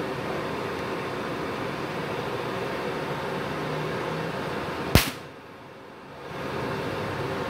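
Cooling fans of switched-on MultiPro inverter welding machines whirring steadily with a low hum. A single sharp, loud click comes about five seconds in.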